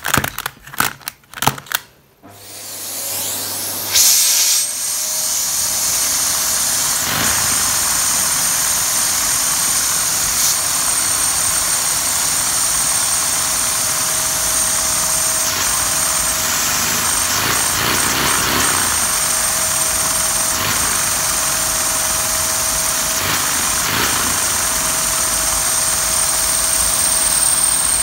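Vacuum cleaner motor switching on a couple of seconds in, spinning up and then running steadily with a high whine; its suction drives a two-cylinder Lego vacuum engine. A few clicks at the start and a single knock about four seconds in.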